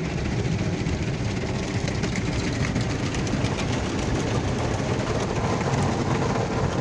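Touchless automatic car wash spraying coloured tri-coat foam over the car, heard from inside the cabin: a steady rushing hiss with a low machinery hum beneath it.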